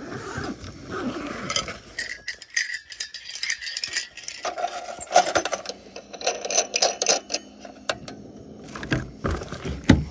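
Rattling and clinking of small objects being handled, a busy run of irregular clicks and knocks with a louder knock near the end.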